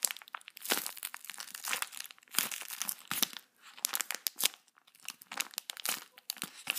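Clear plastic packaging bag crinkling and crackling irregularly as hands squeeze a homemade squishy sealed inside it.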